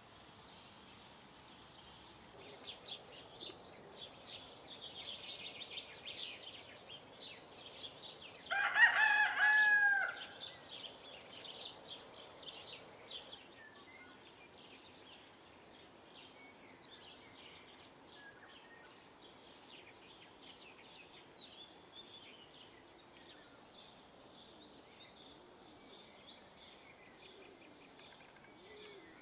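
A rooster crows once, about nine seconds in, for about a second and a half, with the pitch dropping at the end. It is the loudest sound, over continual songbird chirping.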